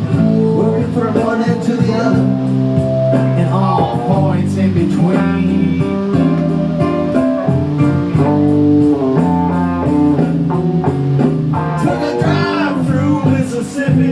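Blues music playing, led by guitar over a steady bass, with a few bent, sliding notes; an instrumental stretch between sung lines.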